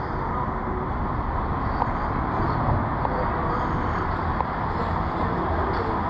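City street ambience: a steady wash of road traffic noise from passing vehicles.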